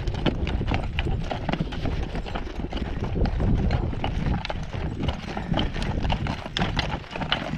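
Hoofbeats of a team of two draft horses walking on packed dirt, a busy, uneven clip-clop of many steps.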